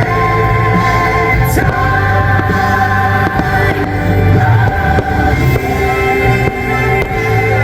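Holiday fireworks-show soundtrack: loud, steady music with singing voices.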